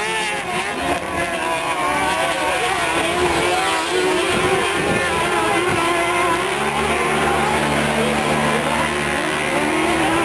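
Engines of off-road race vehicles (side-by-side UTVs and buggies) running on a dirt track, their pitch rising and falling as they rev through a turn. A steadier low engine drone joins about two-thirds of the way through.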